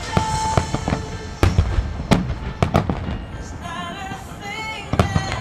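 Aerial firework shells bursting in quick succession in a display finale, sharp booms over continual crackling.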